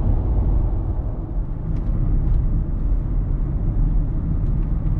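Steady low rumble of a car driving, heard inside the cabin: road and engine noise, with a few faint ticks.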